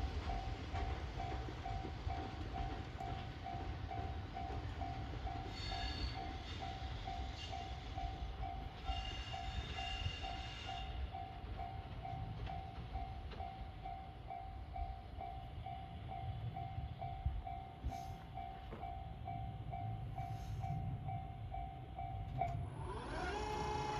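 Japanese level-crossing alarm bell ringing at an even pace of about two strikes a second, over the low rumble of a train moving through. Two brief high squeals come about 6 and 10 seconds in. The bell stops shortly before the end.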